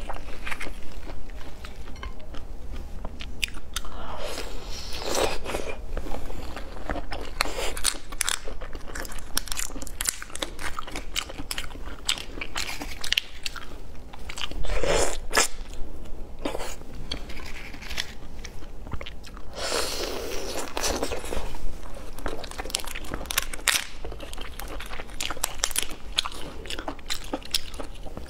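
Shells of cooked red shrimp cracking and crackling as they are peeled by hand, with biting and chewing of the meat close to the microphone. The result is an irregular run of crunches and small crackles.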